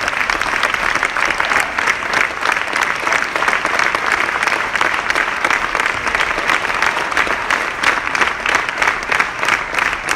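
A theatre audience applauding: many hands clapping together in a dense, steady wash.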